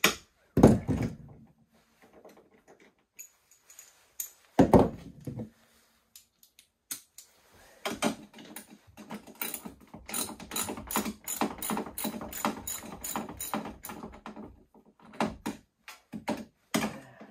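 Socket ratchet clicking in quick runs, about five ticks a second, as the 10 mm bolts on a snowmobile's chain case cover are backed out. There are two heavy knocks, about half a second and about five seconds in.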